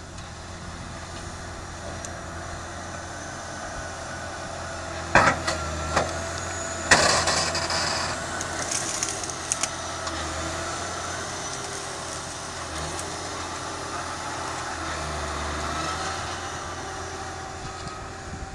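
Case IH Quadtrac 600 tracked tractor's diesel engine running under load as it pushes earth and brush, its pitch rising and falling with the work. Several loud sharp cracks about five and six seconds in, then a crunching burst about seven seconds in.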